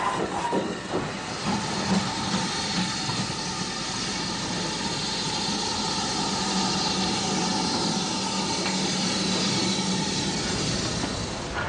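Caledonian Railway No. 123, a 4-2-2 single-driver steam locomotive, moving past with a steady hiss of steam.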